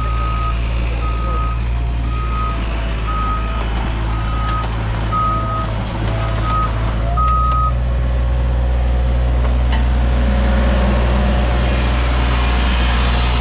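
Cat 303.5 mini excavator's diesel engine running with a travel alarm beeping about once a second; the beeps stop about seven seconds in and the engine then sounds louder.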